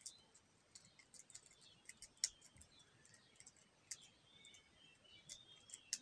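Faint, irregular metallic clicks and scrapes of a lock pick raking the pins inside a 38 mm Kingfisher padlock held under a tension wrench, with one sharper click a little after two seconds.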